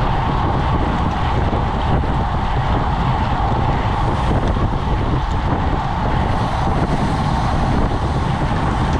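Steady wind noise buffeting the microphone of a camera on a road bike riding at about 24–25 mph, over the hum of road tyres on asphalt.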